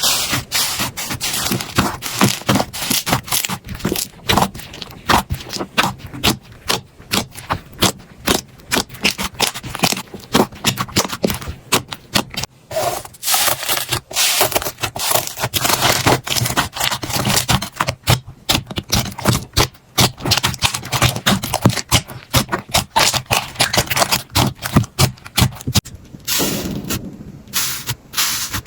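Slime being squeezed and worked, making a dense run of quick crackling, popping clicks. Near the end the sound turns smoother and lower, with fewer clicks.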